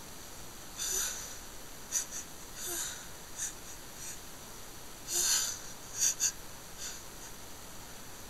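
A person's itchy, hitching breaths as a sneeze builds: three longer breaths, the loudest a little past halfway, with several short sharp puffs between and after them.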